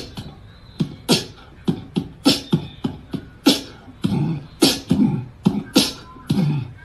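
Beatboxing: a run of sharp mouth-made drum hits on an uneven beat, with heavier voiced bass notes from about four seconds in.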